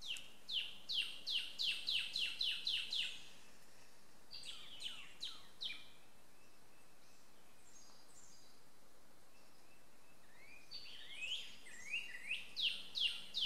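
A songbird singing loud, fast runs of sharp down-slurred notes: about ten in quick succession at the start, a shorter phrase a couple of seconds later, and another run near the end.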